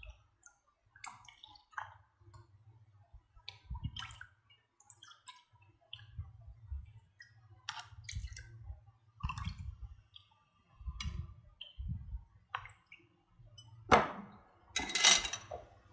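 Milk and yogurt mixture pouring and dripping into a clear plastic cup, with light clicks and knocks of the cup in the hand; a louder stream of pouring near the end.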